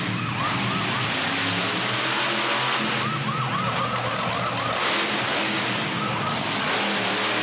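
Sheriff monster truck's engine running loud, with a police siren yelping in quick repeated rises and falls over it.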